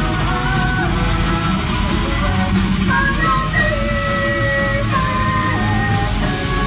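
Metal band playing live: a singer over electric guitars, bass, drums and keyboards, with long held melody notes stepping up and down in pitch.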